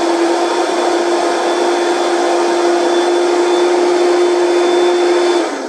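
Countertop blender running steadily at high speed, puréeing soaked peeled split mung beans and water into a thick pancake batter. It is switched off near the end, and the motor's whine falls in pitch as it spins down.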